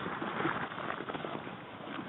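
Irregular crunching and rustling of someone moving on foot over rough ground, a quick uneven run of small scuffs and clicks.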